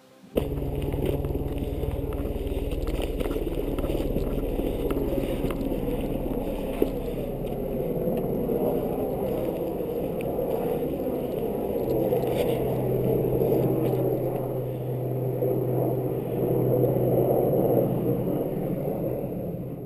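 Mountain rescue helicopter in flight: a steady drone of rotor and engine, starting abruptly and cutting off at the end.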